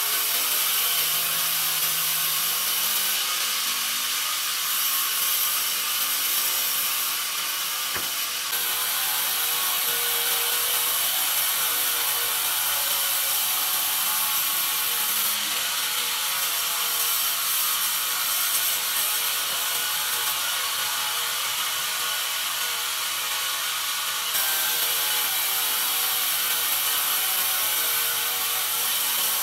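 Vertical band sawmill cutting lengthwise through a pine cant as the carriage feeds it past the blade: a steady, high-pitched sawing hiss.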